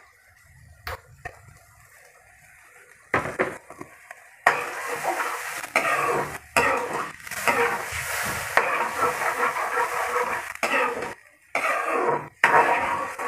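A metal ladle stirring and scraping around a frying pan of watery soy-sauce and sugar sauce on the stove. A few light clicks come first; from about four seconds in a dense scraping starts and stops several times.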